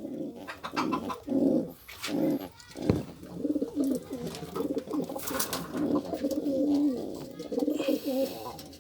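Domestic pigeons cooing over and over, low throaty calls one after another, with a brief knock about three seconds in.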